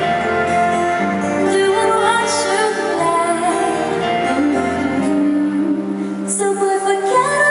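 A woman singing live over instrumental accompaniment, with held notes and gliding pitch.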